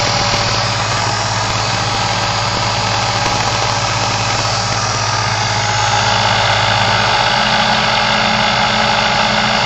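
Induction motor with Duyunov 'Slavyanka' combined windings running at about 3200 rpm: a steady electric hum with a whine and broad whirring noise. About six seconds in the tone shifts and it gets slightly louder.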